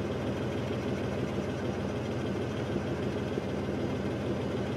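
Four-wheel-drive vehicle's engine running steadily at low speed, a constant low hum.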